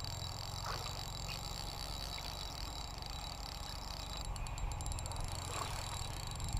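Fishing reel ticking in fast, fine clicks from about four seconds in while a hooked carp is being played, over a steady low hum.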